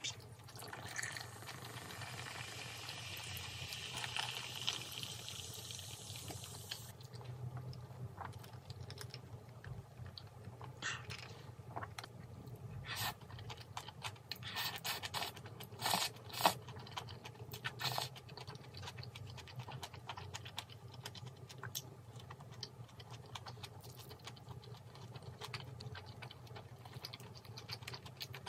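Carbonated soda fizzing from a freshly handled can, an even hiss for the first six or seven seconds. Then close-up eating sounds: chewing, with scattered sharp clicks of chopsticks against a small metal skillet.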